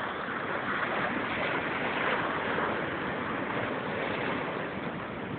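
Ocean surf: a steady rushing noise that swells slightly about two seconds in.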